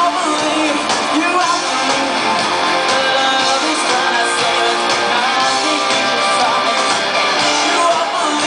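Live rock band playing through the venue's PA: electric guitar, bass guitar and drums, with the lead singer singing into a handheld microphone.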